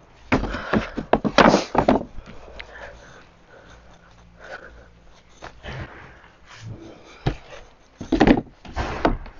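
Wooden compost-bin lid panels being handled and lowered shut, with wood-on-wood knocks and scrapes. These come in a cluster in the first two seconds and again about eight seconds in, with a single sharp click just before.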